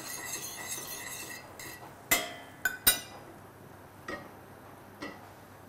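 Metal spoon stirring melting butter in a stainless steel saucepan, then three sharp metal clinks between two and three seconds in and two softer taps later.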